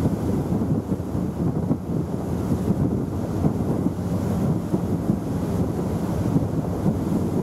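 Strong wind buffeting the microphone, a steady low rumbling noise with no other clear sound.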